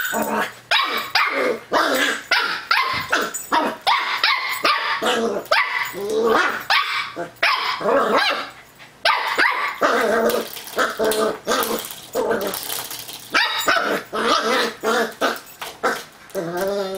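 Cocker spaniel puppy barking and growling, quick barks in rapid succession with hardly a pause, ending in a longer, bending yelp near the end.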